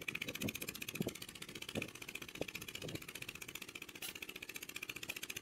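Small engine running steadily with a fast, even beat.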